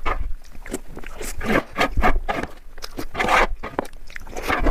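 Close-miked chewing and mouth sounds of someone eating soft Indian sweets, in irregular bursts.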